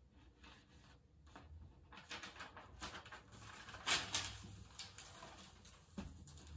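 Sheets of paper rustling and crackling as they are lifted and turned over by hand, loudest about four seconds in.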